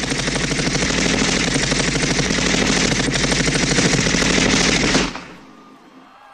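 Staged machine-gun sound effect over a concert sound system: one long burst of rapid automatic fire that starts suddenly and cuts off about five seconds in.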